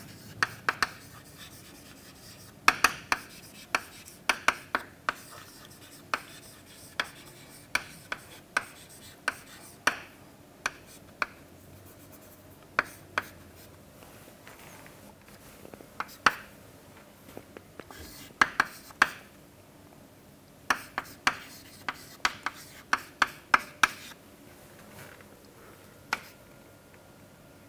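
Chalk writing on a chalkboard: irregular sharp taps and short scratches of the chalk as a formula is written out, in quick clusters with brief pauses between.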